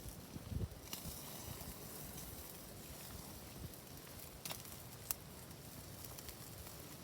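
Wood campfire crackling quietly, with two sharp pops about four and a half and five seconds in. A soft low thump comes about half a second in.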